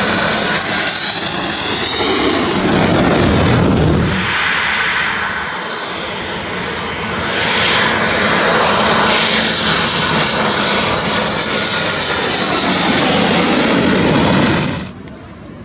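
MiG-29 jet fighters' engines passing close at full volume: a loud jet roar with a high steady whistle over it. It eases after about four seconds, swells again as a second pass builds, then cuts off abruptly near the end.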